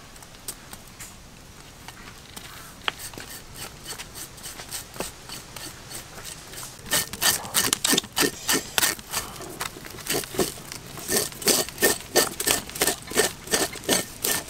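Knife blade scraping along the skin of a freshly killed snake lying in a woven bamboo basket, in quick repeated strokes, about three a second. Faint at first, the strokes grow much louder about seven seconds in.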